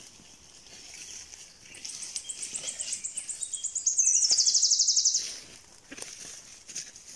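A songbird sings one high-pitched song of quickly repeated notes that speed up and grow louder into a fast, loud trill, then break off about five seconds in.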